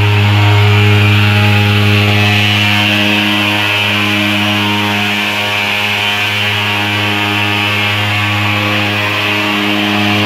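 A small engine running steadily, a loud, even buzzing drone that holds one pitch throughout.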